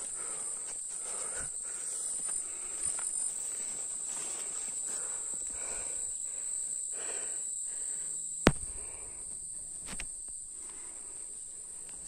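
Steady high-pitched drone of forest insects, with footsteps swishing through leaf litter and undergrowth. A single sharp snap about two-thirds of the way through.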